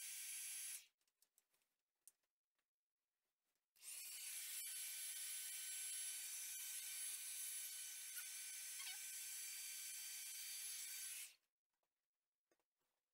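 Babyliss Big Hair rotating hot-air brush blowing: a steady rush of air with a high motor whine. It cuts off about a second in, starts again about four seconds in, runs for roughly seven seconds, and cuts off again.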